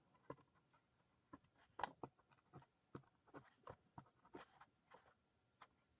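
Faint, irregular scratches and light taps of a pen writing on paper in a small room.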